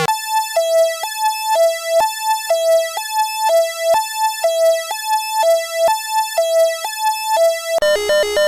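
Synthesized two-tone alert tone alternating high and low about every half second, a keyboard-like tone with many overtones, in the style of an emergency alert alarm. Shortly before the end it switches abruptly to a denser, layered alarm tone.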